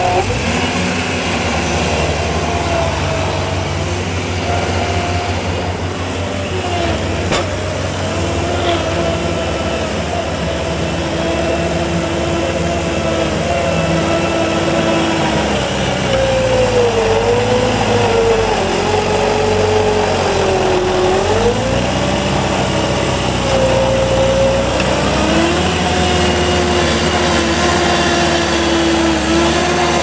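Gehl SL 5640 skid steer loader's diesel engine running at working speed, its pitch sagging and recovering several times in the second half as the bucket pushes a load of dirt.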